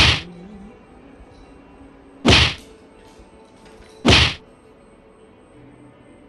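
Three loud whacks, about two seconds apart, each dying away quickly.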